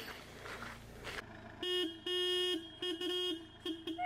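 A vehicle horn honking in a string of short toots, some longer and some quicker, starting about one and a half seconds in: arriving guests honking in greeting.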